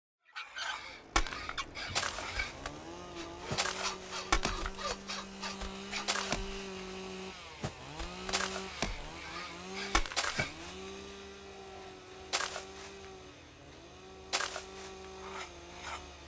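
Wood-cutting sound effects: a saw drones in several stretches of one to four seconds, with sharp cracks and knocks of splitting wood between them.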